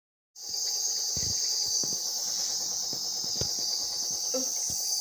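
Nebulizer running, a steady high hiss of air and medicine mist, with a few low knocks from the phone being handled.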